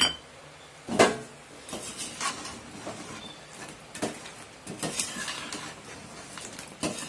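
A perforated metal slotted spoon stirring fried fish pickle in a metal kadai, scraping and clinking irregularly against the pan, with one louder knock about a second in.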